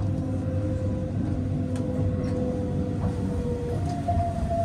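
Keihan electric train moving off from a station, heard from inside the driver's cab: a low running rumble under a thin electric motor-drive whine that steps up in pitch near the end.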